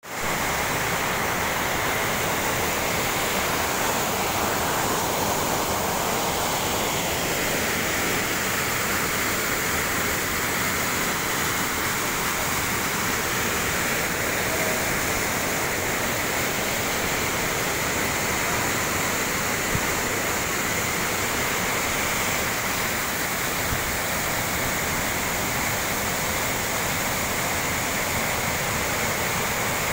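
Waterfall cascading over rock into a churning pool at close range: a steady, unbroken rush of white water.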